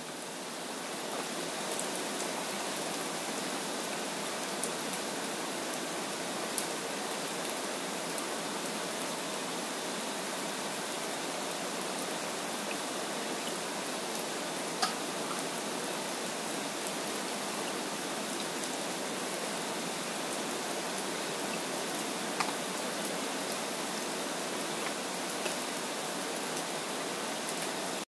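Steady rain falling, an even hiss with scattered sharp drip clicks, a few of them louder; it swells up over the first second or two.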